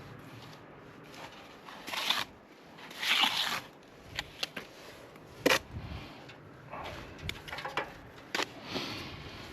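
Hand plastering work on render: a couple of short scraping strokes, then a series of sharp taps and clicks of tools.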